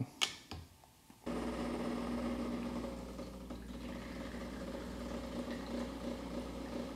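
A light clink near the start, then about a second in an espresso machine's pump switches on with a sudden steady hum and runs while the shot pulls. The shot runs fast and barely builds 4 bar of pressure.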